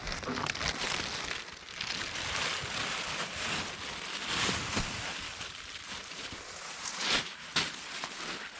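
Wind rushing through forest trees in gusts that swell and ease, with a few sharp knocks or snaps about seven seconds in.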